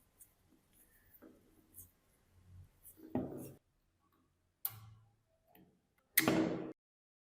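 Light clicks and ticks of metal tool parts being handled, with three louder knocks about three, four and a half and six seconds in, the last the loudest; the sound then cuts out abruptly.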